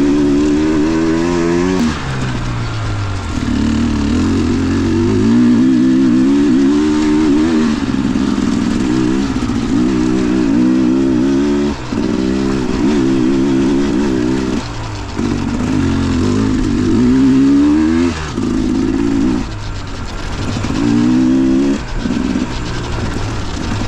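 Dirt bike engine revving up and down on and off the throttle, its pitch rising and falling over and over with short dips every few seconds.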